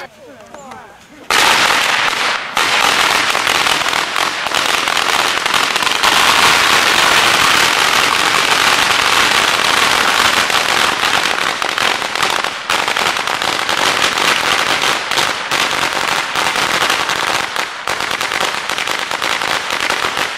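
A large ground firework, most likely a long string of firecrackers, going off in a dense, rapid, unbroken run of cracks and pops. It bursts in suddenly about a second in and keeps going loud to the end.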